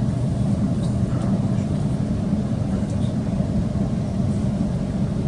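Steady rumble of an electric suburban train running, heard from inside the passenger carriage.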